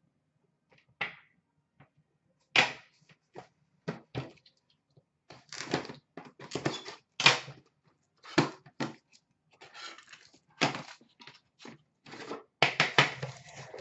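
Hands handling trading-card boxes and metal tins: an irregular string of knocks, thunks and cardboard scrapes as a tin is set down and an Upper Deck The Cup hockey box is picked up and its tin slid out.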